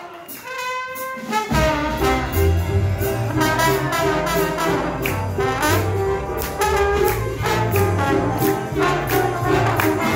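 Live jazz band: a trombone solo over piano, bass and drums. A single held brass note sounds first, and the full band comes in about a second and a half in.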